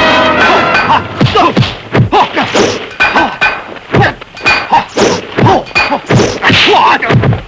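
Kung fu film punch and block sound effects: a rapid series of sharp whacks and thuds, about two to three a second.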